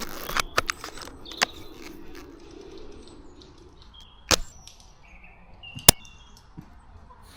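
Airsoft guns firing scattered single shots. A quick string of sharp cracks comes in the first second and a half, then two louder lone shots come about four and six seconds in, the second the loudest.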